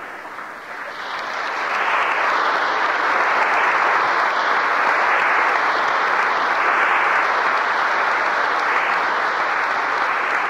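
Congregation applauding, swelling over the first couple of seconds and then holding steady.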